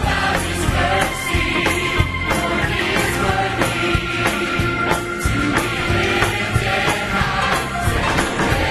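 Large church choir singing an upbeat gospel song with orchestra and piano accompaniment, over a steady beat of about two strokes a second.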